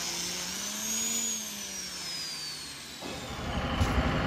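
Electric angle grinder with a sanding disc running on tyre rubber: its whine rises briefly, then slides down in pitch as the motor slows. About three seconds in, it gives way abruptly to outdoor street noise.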